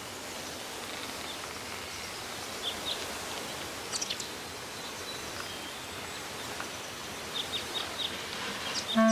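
Woodland ambience: a steady soft hiss of outdoor background noise, with a few brief high bird chirps about three and four seconds in and again a cluster near the end.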